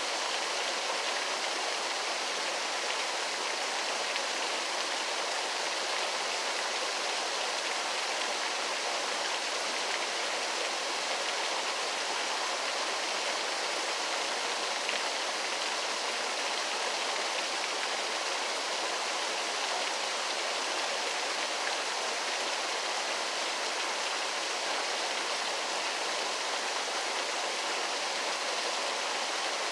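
Waterfall: a steady, even rush of falling water that never changes, mostly hiss with little deep rumble.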